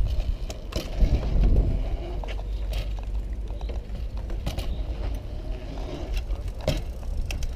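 Mountain bike tyres rolling over a concrete skatepark with a steady low rumble, and a few sharp knocks as the bike rides the ramps.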